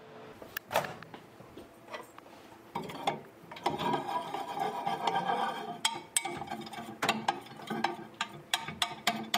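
Microwave oven being worked: a run of sharp clicks and clatter as its door is opened and handled, over a steady mechanical hum from about three and a half seconds in.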